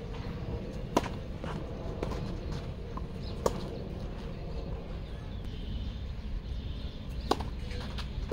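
Tennis balls struck by rackets during a point: sharp pops of the ball off the strings, a serve about a second in, another loud hit about three and a half seconds in and one near the end, with fainter, more distant hits between, over a steady low outdoor rumble.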